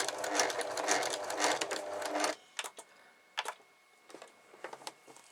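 PFAFF sewing machine stitching with a universal presser foot fitted, running at a fast steady rate, then stopping abruptly about two seconds in. A few light clicks follow.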